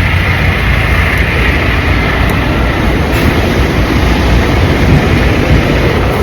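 Steady, loud low rumble of a vehicle, even and unbroken.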